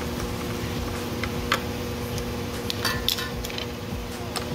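Steel wrench clinking on a bolt of the transaxle case as it is turned: a few scattered metallic clicks, and a short cluster of clinks with a brief ring about three seconds in, over a steady low hum.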